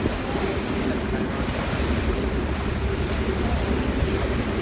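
Wind buffeting the microphone on the open deck of a moving ferry, over the rush of water pushed aside by the hull, with a faint steady hum underneath.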